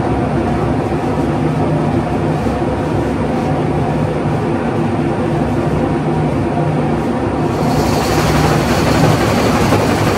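Carpet-beating machine running with a steady mechanical hum; about eight seconds in, a hiss rises and grows louder over it.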